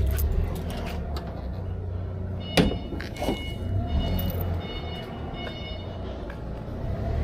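A vehicle engine running with a steady low rumble, with one sharp knock about two and a half seconds in.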